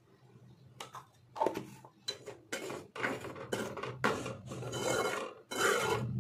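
Metal spoon stirring thick rajma gravy in a metal pan, scraping and knocking against the pan's sides and bottom in irregular strokes that start about a second in.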